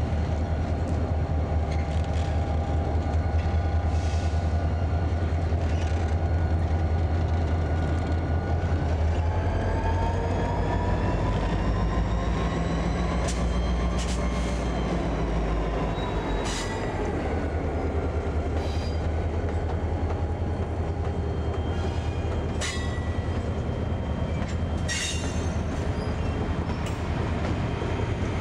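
Diesel-hauled Amtrak passenger train passing close by: the locomotive's engine drone comes first, with a whine that rises and falls about halfway through. Then the bilevel passenger cars roll past with clicking wheels and brief high wheel squeals.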